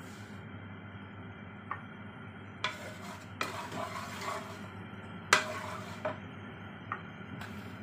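Wooden spatula stirring and scraping around a nonstick wok of hot oil, a handful of short scrapes and knocks with the sharpest about five seconds in, over a faint steady sizzle.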